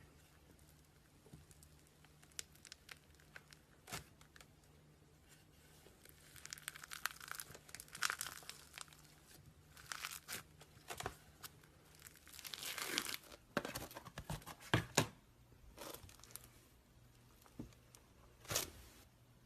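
Slime being handled close to the microphone, crackling and popping with scattered sharp clicks. The crackling thickens partway through and the loudest pops come near the end.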